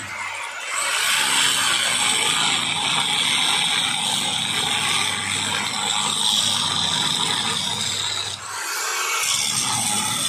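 Angle grinder with an abrasive cutting disc cutting into an iron door frame: a steady high grinding whine that eases off briefly about half a second in and again near the end.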